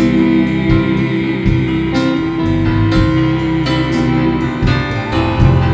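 Live worship band music between sung lines: guitar and keyboard playing held chords over a steady drum beat.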